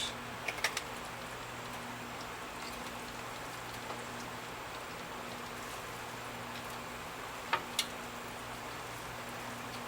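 Chicken sizzling and crackling on a rotisserie in a toaster oven at 400°F, over a steady low hum, with a few light clicks.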